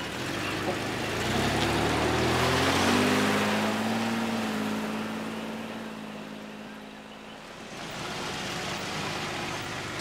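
A car engine pulling away, its pitch rising as it speeds up, then holding steady and fading as it drives off. A steady rushing hiss is left near the end.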